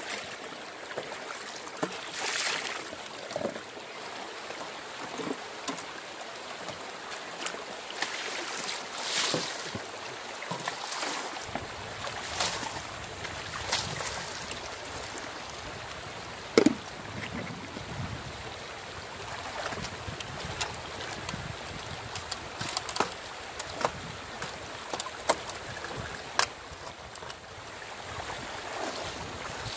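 Shallow stream water running, with splashing as water is poured over a hand sluice box and as someone wades through the shallows; scattered short splashes and clicks, and one sharp knock a little past halfway.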